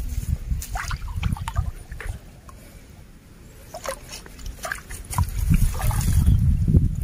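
Shallow muddy water sloshing and splashing as a hand net on a bamboo pole is pushed through it, loudest in the last two seconds.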